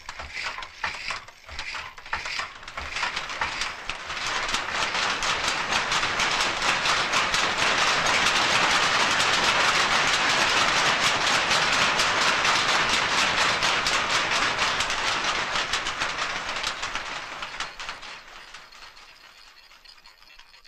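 Loom clattering: a rapid run of wooden clacks that builds up about four seconds in, holds steady, and fades out over the last few seconds.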